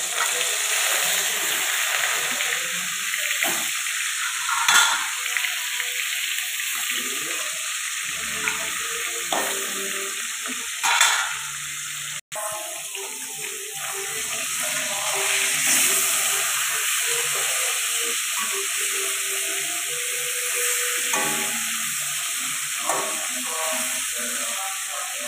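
Fish pieces frying in hot oil in an aluminium kadai, with a steady sizzle. It spatters louder twice, about five and eleven seconds in.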